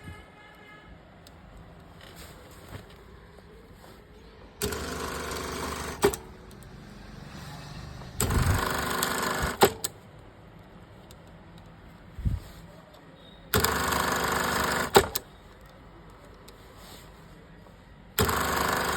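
Industrial lockstitch sewing machine sewing in four short runs of about a second and a half each, every run ending with a sharp click, with a low hum between runs.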